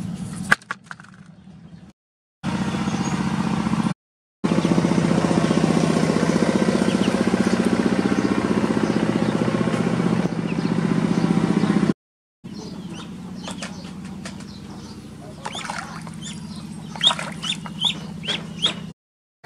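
A steady low drone, loudest through the middle, broken by brief dropouts. Near the end, over a fainter drone, ducklings peep in short high chirps.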